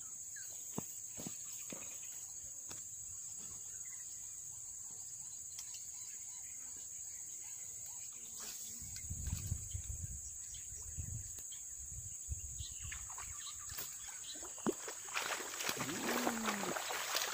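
Steady high-pitched insect chorus from the swamp grass, with scattered light ticks and clicks. A low rumble comes about nine seconds in, and a louder spell of rustling starts about fifteen seconds in.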